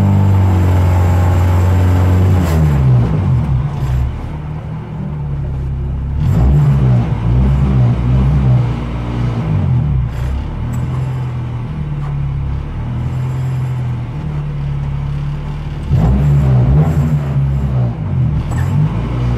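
Honda race car's four-cylinder engine revving while the car stands still, heard from inside the cabin: held at high revs for the first couple of seconds, then dropping back to a rough idle with repeated throttle blips, picking up again near the end.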